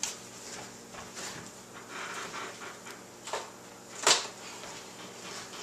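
Quiet kitchen room sound with two short clicks or knocks a little after the middle, the second one louder.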